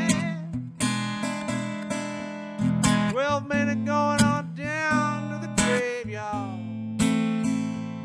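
Stella acoustic guitar playing a slow country-blues accompaniment, with steady bass notes under a melody line that bends and slides in pitch.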